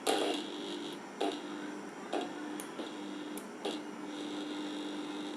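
Mixer grinder motor, out of its housing, running on a series test lamp: a steady hum with a faint high whine, with four sharp surges in level about a second apart. On this reduced supply the motor does not come up to speed.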